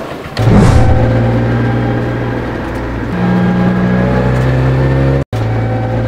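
Vehicle engine running steadily, heard from inside a moving vehicle, its pitch easing slightly downward; the sound cuts out for an instant about five seconds in.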